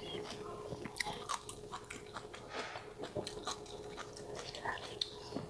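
Close-miked chewing of a mouthful of stir-fried chicken gizzard and vegetables, with many small wet crunches and clicks at an uneven pace.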